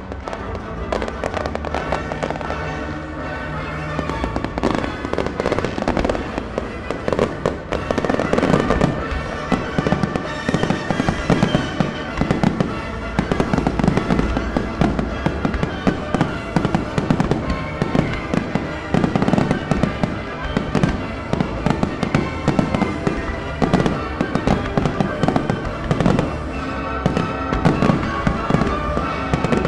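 Fireworks display firing a dense, unbroken string of bangs and crackles, with music playing along with the show.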